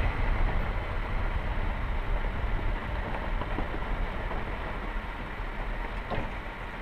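Vehicle driving slowly along a gravel track: a steady, rough low rumble of engine and tyres, with a couple of faint ticks from stones.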